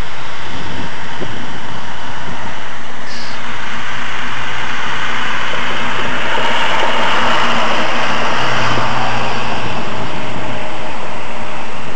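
Loud rushing noise of a passing vehicle over a low engine hum, swelling through the middle and easing off near the end.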